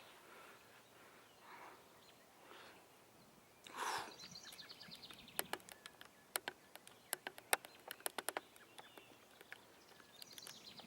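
Faint outdoor ambience with a short, fast, high trill like a bird call about four seconds in, followed by a quick irregular run of about a dozen sharp clicks.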